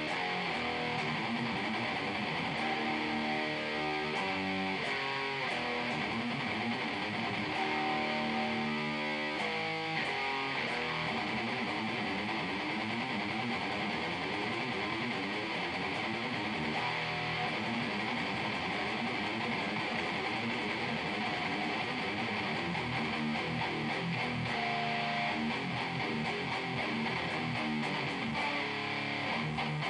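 Electric guitar played through a high-gain Bugera 6260 valve amp head and 2x12 cabinet, distorted metal riffing: some held notes and slides, then fast, rapidly picked riffs.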